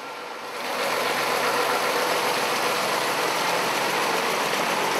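Army truck's engine running as it drives through floodwater, a steady noise that swells up about half a second in.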